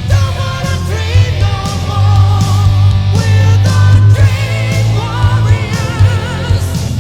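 Rock song with a wavering sung vocal over heavy bass, guitar and drums.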